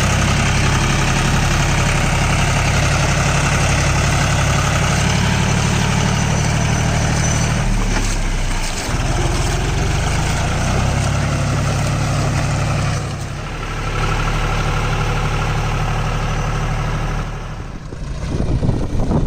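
John Deere tractor's diesel engine running steadily, with a broad rushing noise over it. The engine note drops briefly twice, and it fades near the end, leaving the rushing noise.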